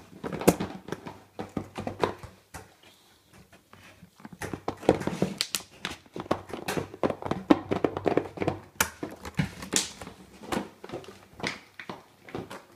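Dogs chewing empty plastic drink bottles: irregular crackling and crunching of the plastic under their teeth, with a short lull about three seconds in.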